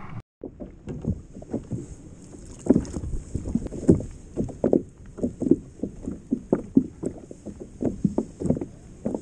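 Small waves slapping and knocking irregularly against a kayak's hull, about two to three knocks a second, over a steady faint high hiss.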